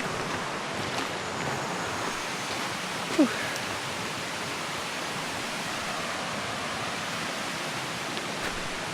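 Steady rushing of a mountain stream or waterfall, with one short falling chirp about three seconds in.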